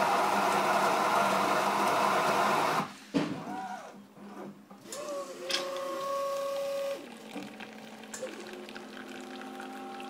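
Tiger bean-to-cup coffee machine grinding beans for about three seconds, then cutting off suddenly with a clunk. A steady motor whine follows for about two seconds, then a quieter steady hum as the machine begins to dispense.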